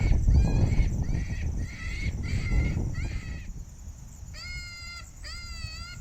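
A predator call playing a bleating distress cry to lure coyotes: short wavering cries about twice a second over a low rumble, then after a short pause, longer drawn-out wavering cries from a little past the middle.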